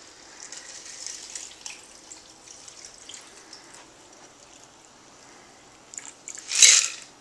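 A shaken cocktail being strained from a metal shaker through a strainer into a rocks glass of ice: a soft trickle of liquid that thins out, with a brief louder burst near the end.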